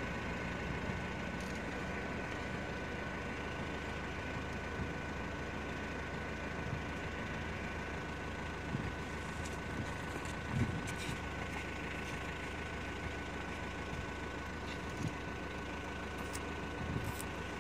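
A vehicle engine idling steadily, a constant low hum with a thin steady whine above it.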